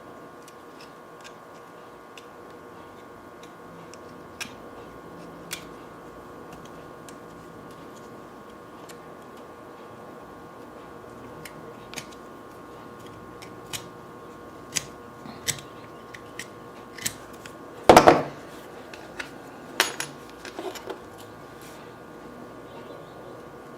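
Scattered sharp clicks and snips of a small hand tool working metal parts, coming more often in the second half, with a louder clack about 18 seconds in and another near 20 seconds, over a steady electrical hum.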